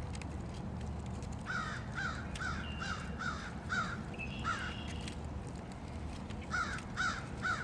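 Crow cawing: a quick run of about seven caws, then three more near the end, over a steady low rumble.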